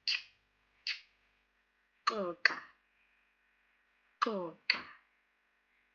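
Two short lateral clicks (the isiNdebele X click, a sound like calling a horse), then the word "xoxa" spoken twice, each syllable opening with a sharp lateral click.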